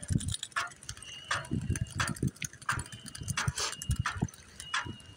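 A man running with a phone in hand: repeated hard breaths and footfall thuds at a jogging pace, with a light metallic jingle, typical of a dog's collar tags.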